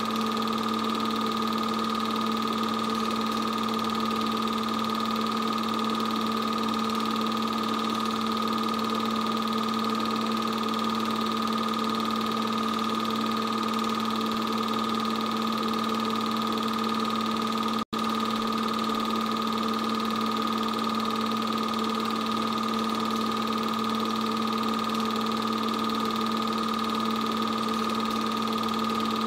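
8mm film projector running, a steady mechanical whir with a constant hum. The sound cuts out for an instant about eighteen seconds in.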